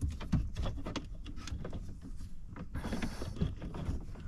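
Scattered clicks, taps and rustling from hands handling wiring and small air lines behind an open truck dash panel, with a short burst of rustling about three seconds in.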